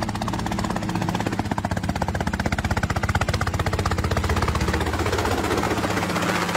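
Excavator running with a hydraulic mower head on its arm cutting through thick weeds: a steady machine sound with a fast, even pulsing over a low drone.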